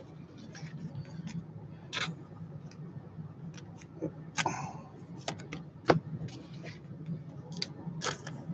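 Trading cards being slid into plastic card sleeves and handled: scattered light clicks, taps and a brief plastic rustle over a low steady hum.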